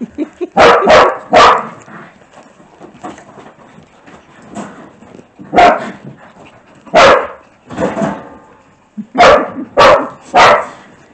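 Dogs barking in play: sharp, loud barks in clusters, three in quick succession about a second in, single barks in the middle, and three more near the end.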